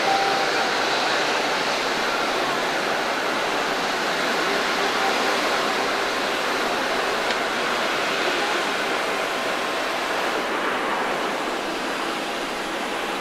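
Steady, even rushing noise of airliner jet engines on an airport apron, easing slightly near the end.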